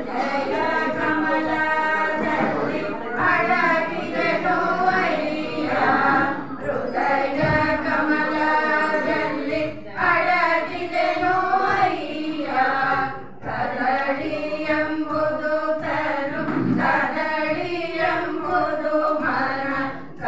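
A small group of women singing a song together into a microphone, in phrases of a few seconds with short breaths between them.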